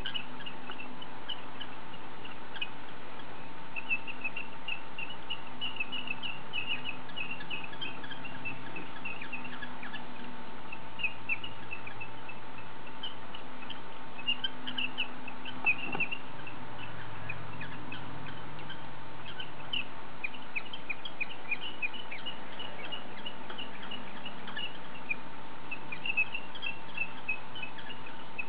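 Small birds chirping in quick, short, high calls, coming in clusters again and again over a steady background hum with a faint constant tone.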